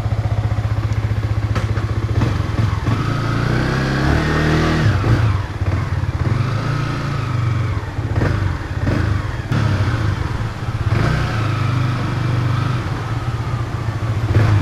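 Yamaha R15's single-cylinder engine running at idle, with the pitch rising and falling a few times as the throttle is blipped.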